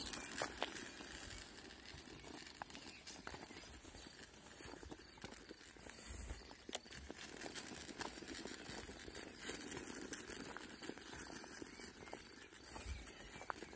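Faint, uneven footsteps and light crunching of grit underfoot on an asphalt path, with scattered small clicks.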